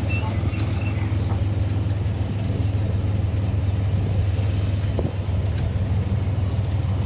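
Engine of a small tourist toy train running steadily with a low, even hum.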